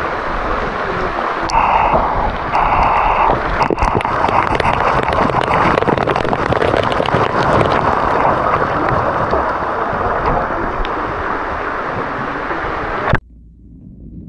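Loud, steady rush of moving, splashing water with fine crackling, which cuts off abruptly about a second before the end.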